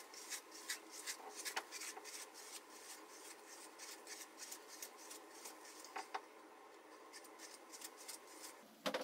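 Faint, quick swishing strokes of a plastic paddle hairbrush being pulled through wet hair, densest at the start and thinning out in the middle, with a louder knock near the end.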